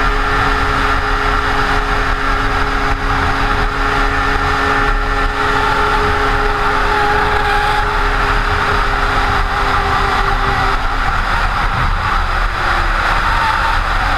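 Snowmobile engine running at a steady high pitch while the sled skims across open water at speed. About twelve seconds in the pitch drops as the sled comes up onto snow-covered ice.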